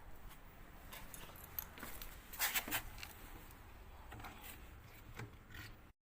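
Hand work on a washing machine: a few sharp metallic clicks and clatters of parts and tools being handled, loudest about two and a half seconds in, over a low steady hum.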